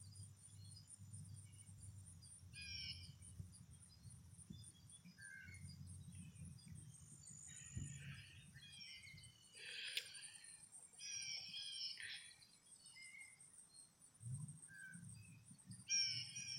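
Faint outdoor ambience of birds chirping and calling in short, scattered phrases over a steady high insect trill, with a low rumble of wind on the microphone.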